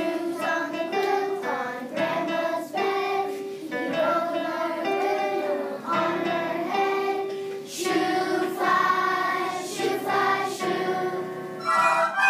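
A group of young schoolchildren singing a song together, in short held phrases.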